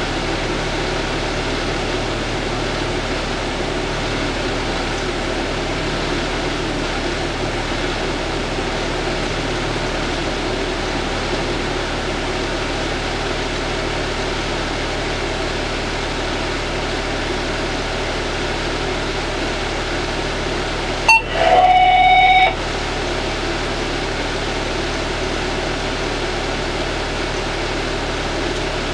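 Steady drone of a parked fire engine idling, heard from inside the cab. About three quarters of the way through, a click and a short electronic beep tone lasting about a second.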